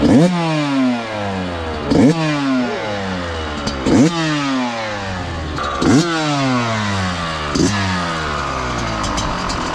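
2021 Yamaha YZ125 single-cylinder two-stroke engine, new and being run in, revved on its stand: the revs snap up about every two seconds and fall back slowly toward idle, four big blips followed by smaller ones near the end.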